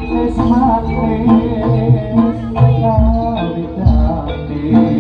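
Live jaranan accompaniment: a traditional East Javanese gamelan-style ensemble playing, with deep drum strokes under a wavering melody line.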